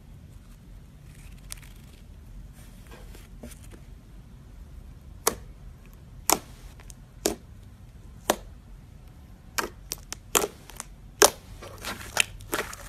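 Thick green slime being stretched, then pressed and squeezed by hand, giving sharp little pops and clicks as air trapped in it bursts. The first seconds are faint, then the pops come about once a second and quicker near the end.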